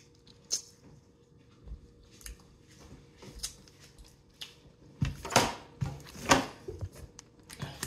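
Close-up eating sounds: slurping and sucking meat out of a cooked crab leg shell, with wet chewing and lip smacks. The loudest slurps come about five and six seconds in.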